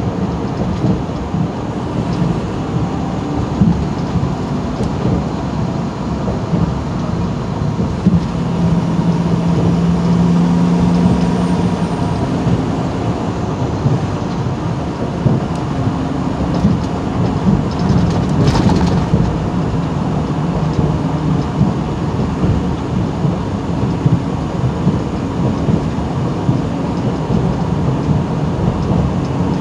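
Semi truck driving at highway speed, heard from inside the cab: the steady drone of its diesel engine over a constant low rumble of road and wind noise.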